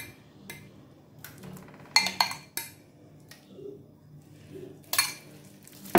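A spoon clinking and tapping against a jar and frying pan as thick marinade paste is scooped out and dropped onto raw potato slices: a sharp clink at the start, a quick cluster of three about two seconds in, and another about five seconds in.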